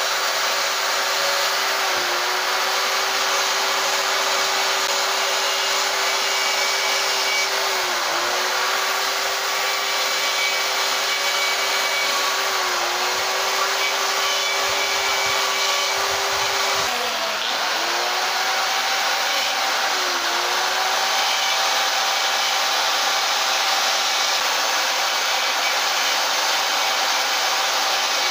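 Small carving chainsaw running steadily at high speed, cutting feather detail into a wooden owl carving. Its whine dips briefly every few seconds as the chain bites into the wood.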